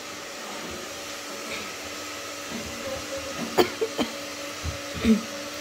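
A steady electric motor hum, with a few light clicks and taps near the end as a metal hair-colour tube is opened and squeezed into a plastic tint bowl.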